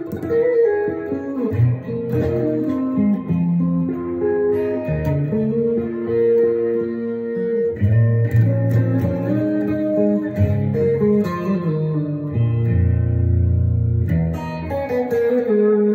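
Solo electric guitar played with single-note lines and chords, some notes held for a second or more.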